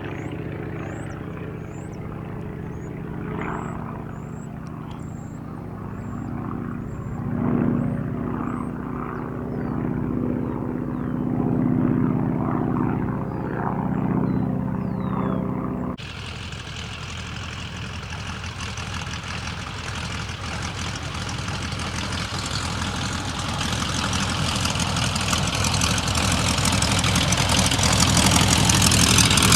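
Boeing Stearman biplane's radial engine and propeller running, with birds chirping faintly above it. After a sudden cut about halfway through, the aircraft engine sound becomes fuller and noisier and grows steadily louder toward the end.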